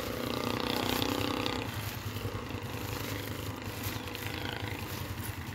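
A vehicle engine hums steadily, fading out a little under two seconds in, over low outdoor street rumble.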